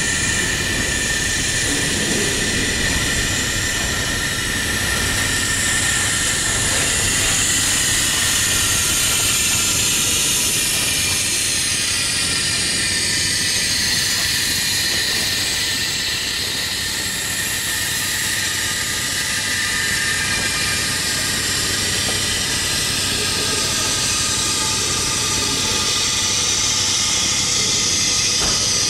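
A long freight train's cars (tank cars, boxcars and a covered hopper) rolling past close by: a steady rumble and clatter of steel wheels on the rails, with a steady high hiss over it.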